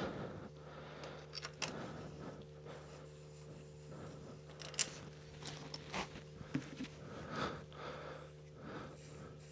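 Faint clicks and scrapes of hand tools and hardware being handled during work on a trike's front wheel, with a few sharper clicks, over a steady low hum.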